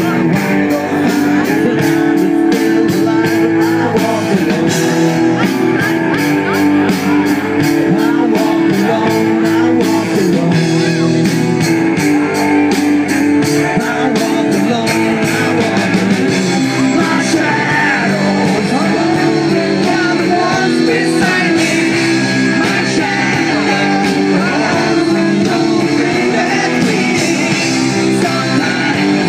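Live rock band playing loud: a fast steady drum beat under electric guitar, with a male voice singing into a microphone.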